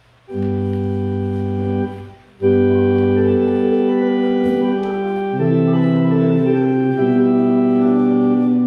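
Church organ playing held chords: one chord for about two seconds, a brief break, then a run of chords that change every second or two.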